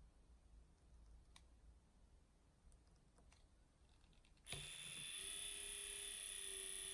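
A few faint clicks, then about four and a half seconds in a small electric motor switches on and runs steadily with a buzzing hum.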